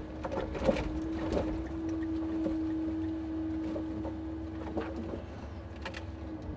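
Timber truck's hydraulic loader crane running with a steady hum over a low engine rumble, with a few sharp knocks as birch logs are set on the load.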